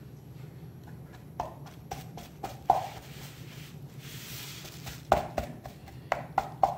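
Marinated ribs in a stainless steel pot being stabbed repeatedly with a utensil: irregular sharp taps and knocks as the tip goes through the meat and strikes the pot, about eight in all, most of them in the second half.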